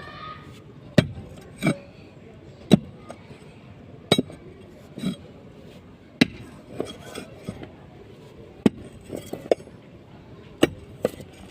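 Repeated sharp metallic clinks from a hand tool striking during construction work, about ten strikes at uneven intervals of roughly a second, some with a short ring.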